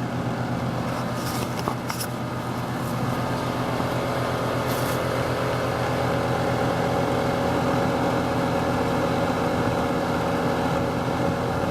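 An outdoor split-system air-conditioning condensing unit, about five tons on R-410A, running: a steady hum with fan noise, and a few faint ticks in the first few seconds.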